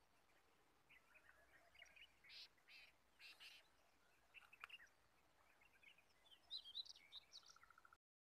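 Faint birds chirping and calling outdoors: scattered short chirps, with a quicker run of calls near the end. The sound then cuts out abruptly to dead silence.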